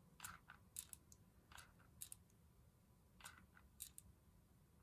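Faint, irregular clicks, about seven of them, from a mini hot glue gun as its trigger is squeezed to feed glue onto a cardstock base.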